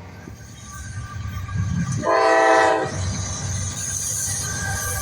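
Norfolk Southern diesel locomotive leading a freight train: a low engine rumble, with one short horn blast, a chord of several tones, about two seconds in, and a rising hiss of the passing train afterwards.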